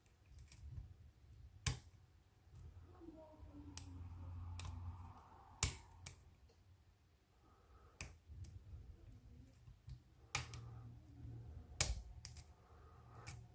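Faint metallic clicks of a lock pick working the pin stack of a Stanley laminated steel padlock, a few sharp clicks spaced a second or more apart. The pins are setting with only subtle feedback rather than a big click.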